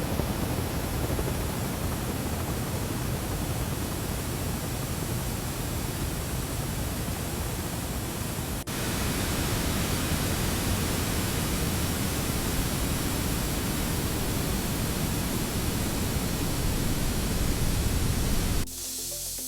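Steady rushing hiss of a high-pressure water spray hitting a roof. It breaks off briefly about nine seconds in, comes back slightly louder, and cuts off suddenly near the end.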